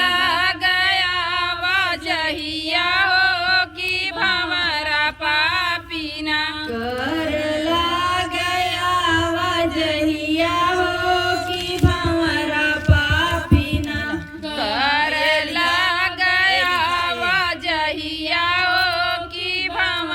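A woman singing a folk song over instrumental accompaniment, with a few low beats in the middle.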